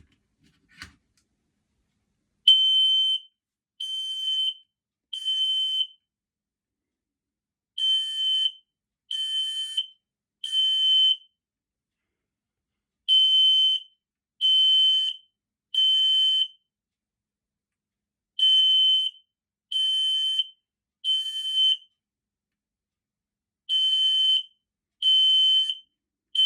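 Smoke alarm sounding during a button-held test: loud, high-pitched beeps in groups of three, with a pause after each group, the group repeating about every five seconds.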